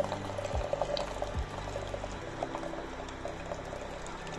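Strained green tea brew for Kashmiri pink tea being poured in a thin stream into a glass jug, splashing steadily into the rising, frothing liquid.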